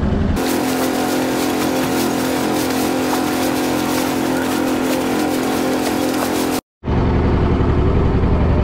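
Small fishing boat's engine running steadily under way, a constant pitched hum. It cuts out for a moment near the end, then comes back as a deeper, rougher rumble.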